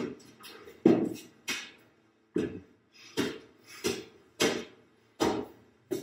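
A steady series of heavy thuds, about one every three-quarters of a second, each dying away quickly with a short room echo.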